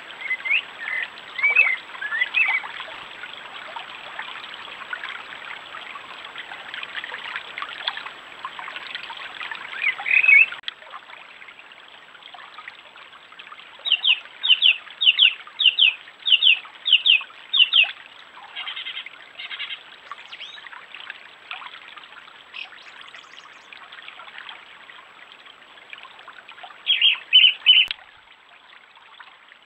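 Shallow stream trickling over stones, with birds calling over it. A run of about eight sharp, evenly spaced calls comes around the middle, and a short quick burst comes near the end.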